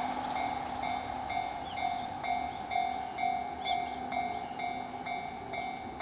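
Japanese railway crossing's electronic warning bell ringing, an even ding about twice a second, while the crossing is closed for a train. The noise of a passing train fades away in the first couple of seconds.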